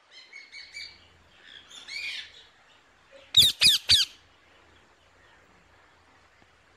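Rainbow lorikeet calling: a few short chirps over the first two seconds, then three loud, harsh screeches in quick succession about three and a half seconds in.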